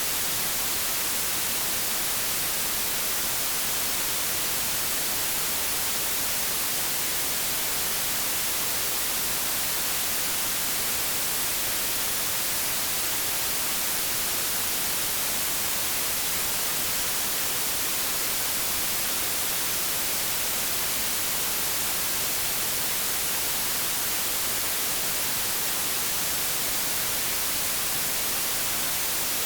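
White noise: a steady, unbroken hiss like television or radio static, strongest in the high frequencies, with no change in level.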